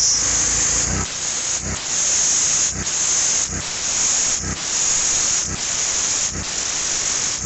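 High-pressure water spray from a pressure washer's turbo nozzle blasting mud off a spreader tyre: a loud, steady hiss that dips briefly about once a second, with a low thump at each dip.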